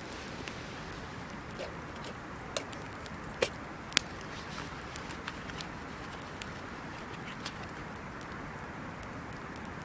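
Wood fire burning with a steady hiss and scattered crackles, and three sharp pops a little past the middle, the last the loudest.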